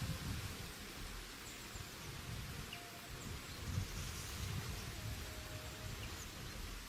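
Steady rushing of a mountain stream, with a few faint, short bird chirps scattered through it and low rumbling that comes and goes underneath.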